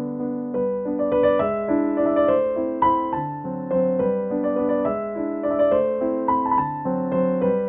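Background piano music, a run of struck notes over lower held notes.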